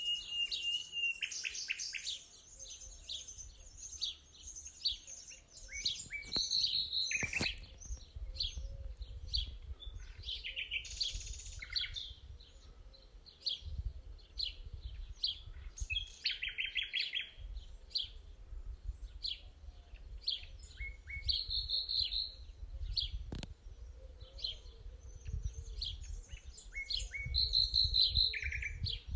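Small birds singing and calling, a dense mix of short chirps and trills, over a faint low rumble.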